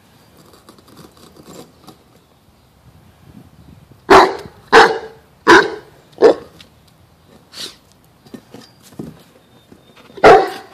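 A large mastiff-type dog barking: four loud barks in quick succession about four seconds in, a fainter bark a little later, and one more loud bark near the end.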